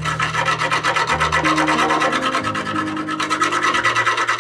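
Quick back-and-forth scraping on the wood of a birdhouse, a fast, even run of rasping strokes.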